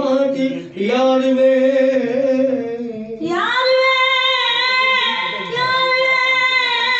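A woman singing a Punjabi song: a lower phrase, then about three seconds in the voice rises to a high note and holds it with slight wavering.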